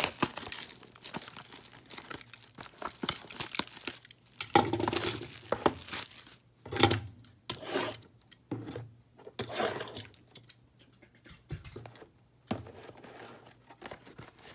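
Sealed trading-card boxes being cut and torn open with a box cutter: irregular bursts of tearing cardboard and crinkling wrapping, with sharp clicks and short pauses between.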